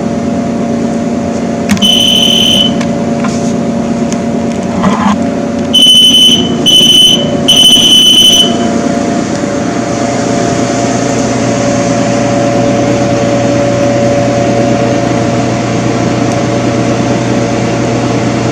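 Electronic beeping: one high beep about two seconds in, then three more close together a few seconds later, over a steady electrical hum.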